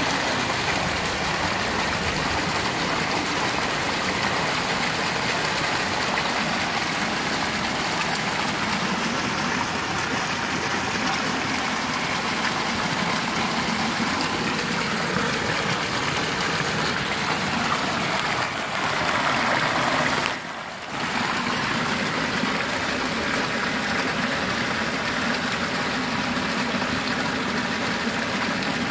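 Floodwater rushing and swirling down a street storm drain in a whirlpool: a steady rushing, gurgling noise from a drain overwhelmed by heavy rain. The noise dips briefly about twenty seconds in.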